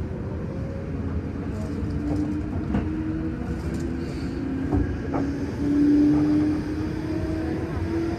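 Electric commuter train running after leaving a station: a low rumble under a motor whine whose tones slowly shift in pitch, with a few sharp clicks about three and five seconds in.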